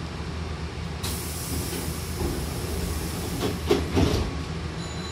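Hankyu train's air-operated double sliding doors closing: a sudden hiss of air about a second in, then the two door leaves slide shut and meet with a pair of thumps about three and a half to four seconds in, over the steady low hum of the stopped train.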